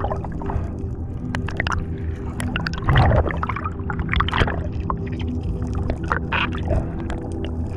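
Underwater sound: water gurgling and bubbling with scattered sharp clicks, over a steady low hum.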